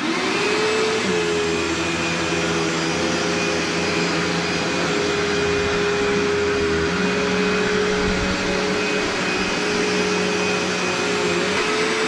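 A cheap vacuum cleaner switched on, its motor whine climbing quickly to speed in the first second and then running steadily with a hissing rush of air.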